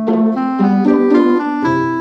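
Background piano music: a keyboard playing a run of notes over chords and a bass line.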